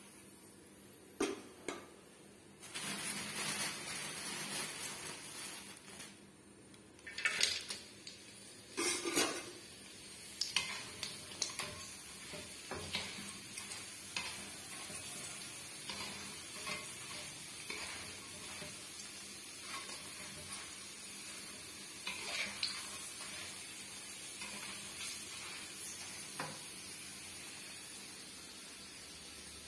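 Cassava strips sizzling in hot oil in a wok, with clinks and scrapes of a wire spider strainer against the metal. A cluster of loud metal clatters comes about a quarter of the way in, followed by scattered lighter clicks over a steady sizzle.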